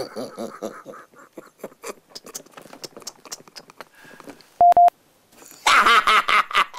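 A man stifling laughter in short breathy snickers, then a single short electronic bleep, a steady high tone lasting about a quarter of a second. After that he laughs loudly.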